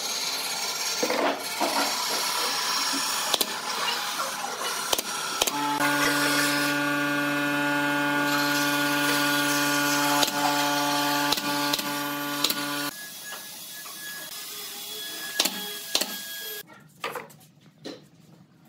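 Pneumatic nail gun driving nails into pine posts: a series of sharp shots at irregular intervals over a steady hiss. A steady hum runs through the middle and cuts off about thirteen seconds in.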